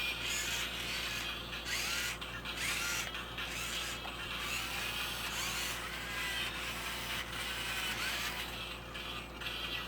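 Robosapien V2 toy robot moving under its own power: its small electric gear motors whirring in short, changing runs, with creaking and clicking from the plastic gearboxes.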